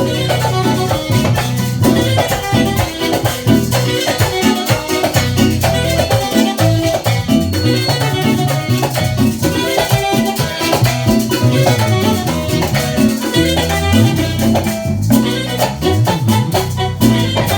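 A band playing Latin dance music at a sound check, with a moving bass line under dense, steady percussion.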